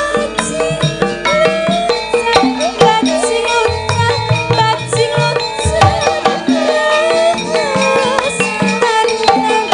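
Javanese gamelan music playing, with sharp drum strokes over layered pitched and gliding melodic lines.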